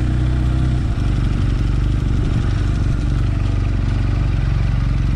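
Motorcycle engine running steadily at low revs while the bike is ridden slowly, heard from the rider's onboard camera along with road noise.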